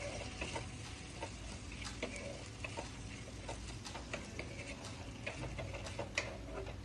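Wooden spatula stirring and scraping raw basmati rice and potato pieces around a non-stick kadai, with irregular soft clicks and scrapes over a faint sizzle of the oil.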